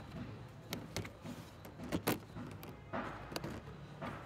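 Scattered light clicks and knocks, irregular and a second or so apart, over a faint low background.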